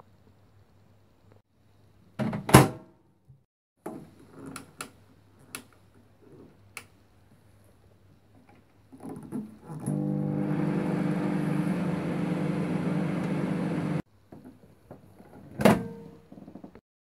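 An appliance door thunks shut and there are a few clicks, then a microwave oven runs with a steady hum for about four seconds and stops suddenly. Another loud thunk follows near the end.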